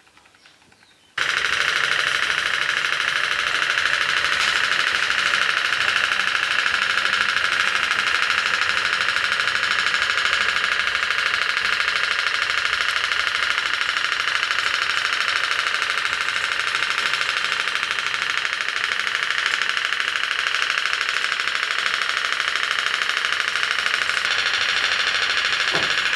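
Candle-fired pop-pop engine of a toy steam locomotive running: its pulsating diaphragm makes a steady, rapid, loud popping buzz that starts abruptly about a second in. The diaphragm's pulses drive the wheels through a hook and sprocket.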